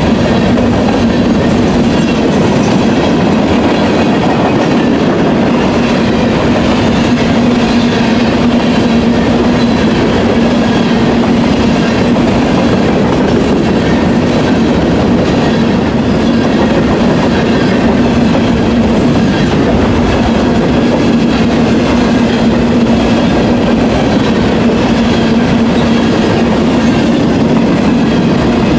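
Freight train of covered hopper cars rolling past at speed: steady noise of steel wheels running over the rails, with a steady hum underneath.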